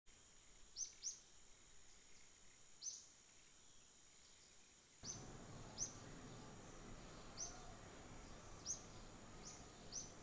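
Faint, short high bird chirps, one every second or so, over quiet background hiss that gets a little louder about halfway through.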